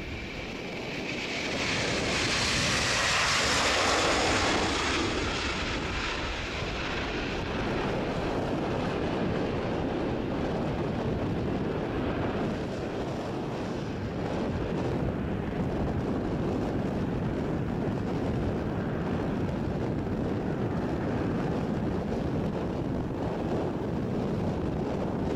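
Airbus A330-300's two General Electric CF6-80E1 turbofans at takeoff thrust as the airliner rolls past, lifts off and climbs away. Loudest about four seconds in, with a high whine and hiss, then a steady deep rumble as it recedes.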